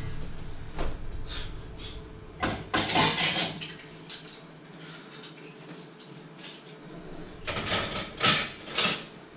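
Dishes and pots clattering as they are handled at a kitchen sink: a few clinks about a second in, a louder burst of clattering around three seconds, and another burst near the end.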